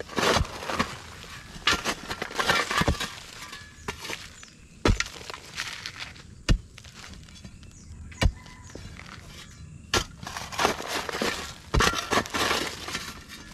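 Steel shovel digging into hard, dry, stony soil: gritty scraping and crunching strokes as the blade is driven in and levered, with a few sharp single knocks spaced a second or two apart in the middle.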